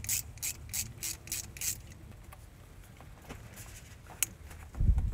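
Rubber radiator hose being handled: about six quick scraping rubs in the first two seconds, a few fainter ones later, then a sharp click and a low thump near the end.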